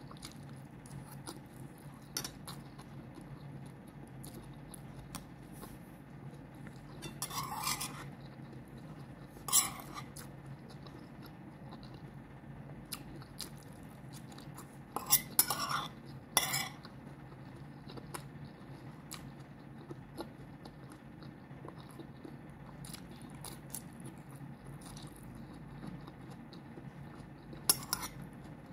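Metal cutlery scraping and clinking against a plate in a few short bursts, the loudest cluster about halfway through, with quiet chewing between, over a steady low hum.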